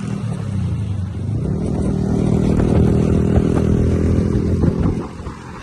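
Motorcycle engine running at a steady pitch, growing louder over the first couple of seconds and then fading out about five seconds in.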